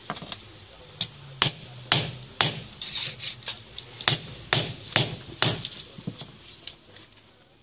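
A screwdriver tip striking the glass touchscreen of a Nokia N8 phone again and again: a dozen or so sharp, glassy clicks about two a second, stopping after about six seconds.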